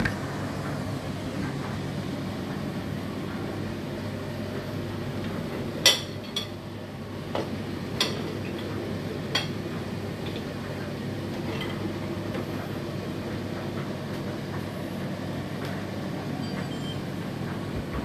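Dishes and the wire rack of a loaded dishwasher clinking a few times as the rack is handled, the sharpest clink about six seconds in and four lighter ones over the next few seconds, over a steady low hum.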